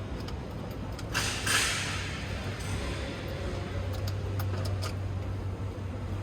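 A short scrape or slide about a second in, lasting under a second, over a steady low hum, with a few faint clicks later on.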